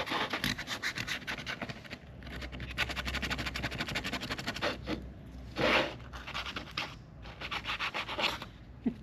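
Sandpaper rubbed by hand in quick back-and-forth strokes, a steady rapid scratching that eases off briefly twice, with one louder scrape past the middle.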